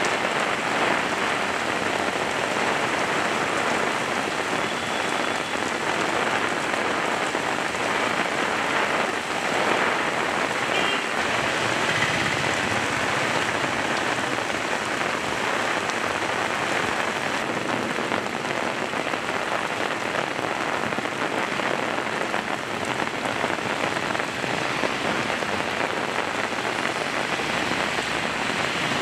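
Heavy rain pouring steadily onto a paved road, a dense, even hiss of drops splashing on the surface.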